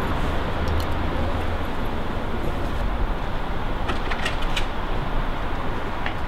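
City street ambience: a steady hum of road traffic, with a few short clicks about four seconds in.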